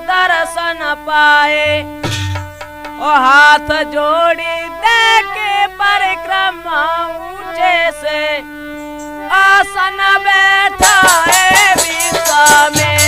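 Instrumental interlude of a Holi folk song: a lead melody sliding and bending in pitch over a held lower note, then the dholak and jingling cymbals come in loudly with fast strokes about eleven seconds in.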